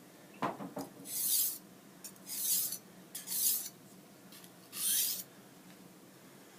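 A knife blade drawn across an oiled sharpening stone in four separate rasping strokes, roughly one a second, the finishing pulls straight across the stone that take off the burr. A couple of light clicks come just before the first stroke.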